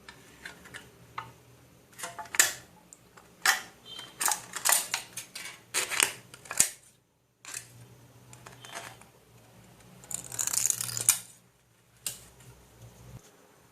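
Irregular clicks, taps and light knocks from handling small craft materials on a work surface, with a longer scratchy rasp about ten seconds in.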